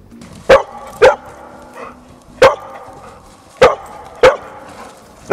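Labrador retriever barking: six loud, short single barks, spaced irregularly from about half a second to over a second apart.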